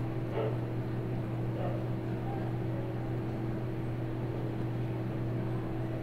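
Steady low hum over faint background noise, unchanging throughout.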